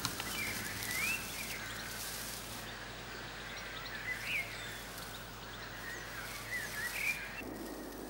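Beavers squeaking: several short, high squeaks that rise and fall in pitch, about a second in, at around four seconds and a few more near the end, over a steady outdoor hiss.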